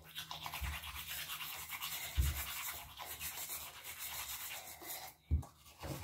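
Toothbrush scrubbing teeth: rapid, steady bristle-on-teeth brushing that stops about five seconds in, with a few dull bumps along the way.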